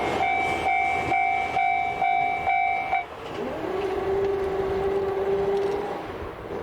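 A train passing on a curve of track: a steady high-pitched squeal with regular rail-joint clicks for about three seconds. Then a lower steady tone that slides up in pitch and holds for about two seconds before the sound fades.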